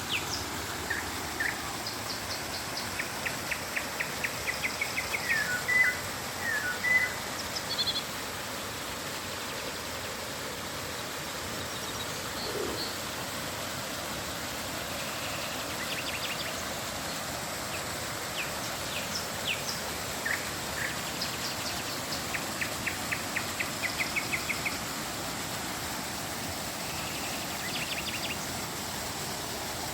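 Birds calling over the steady rush of flowing river water: short chirps, with a rapid run of repeated notes early on and again about three quarters of the way through.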